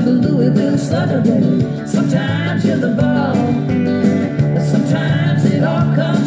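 Technics M218 cassette deck playing a pre-recorded cassette: country-rock music with guitar over a steady beat.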